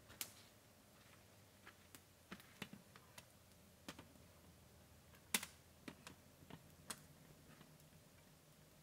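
Irregular sharp clicks and snaps, about a dozen spread unevenly, the loudest about five seconds in, from a small wood cooking fire being tended.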